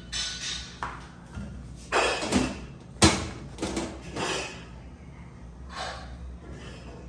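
A series of irregular knocks and thuds as containers are set down on a gas stove's metal top, the sharpest about three seconds in.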